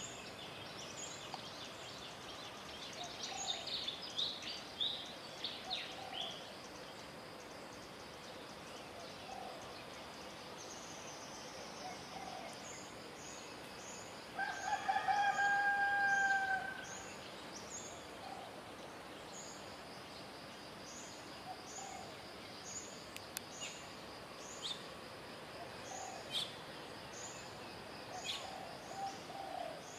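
A rooster crowing once, one long call about halfway through. Small birds chirp around it, with high short chirps repeating about twice a second through the second half.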